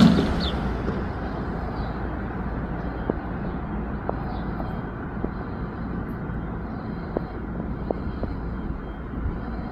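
Steady outdoor vehicle rumble with a few faint ticks, after a loud sudden noise at the very start that fades within half a second.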